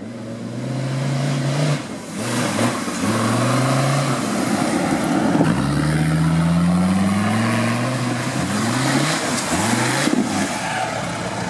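Off-road competition vehicle's engine revving hard, its pitch climbing and dropping again and again, with one long climb about halfway through.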